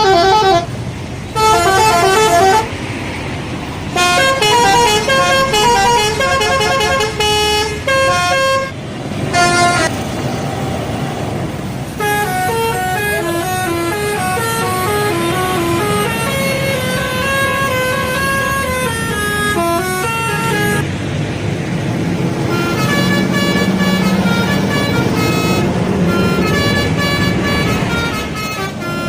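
Indonesian bus telolet horns, sets of electric air horns playing short tunes: loud repeated blasts of quick stepped notes for the first several seconds, then longer, softer melodies to the end.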